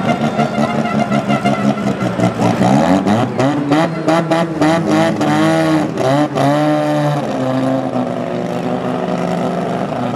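Drag racing car engines revving hard at the starting line, their pitch climbing, holding and dropping back several times, choppy in the middle with a rapid stutter.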